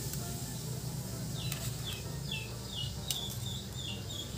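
A small bird chirping: a quick run of short falling notes, about three a second, starting a little over a second in, over a steady low hum, with a couple of light clicks.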